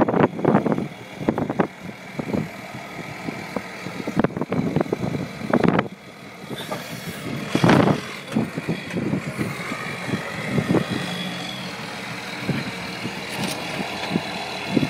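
Swapped-in 5.9 Cummins 12-valve diesel in a Ford F250 running at low revs as the truck crawls over a high curb in low gear. Loud, uneven bursts come in the first six seconds, then the running settles steadier.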